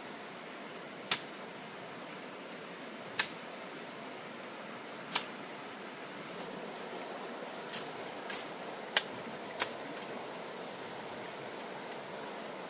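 Seven sharp knocks or chops over a steady hiss, the first three about two seconds apart, the last four quicker, within about two seconds.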